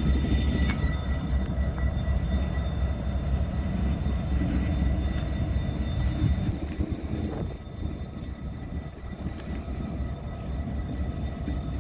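A string of diesel locomotives rolling slowly past, a deep steady rumble with a thin high whine over it, easing off a little about halfway through.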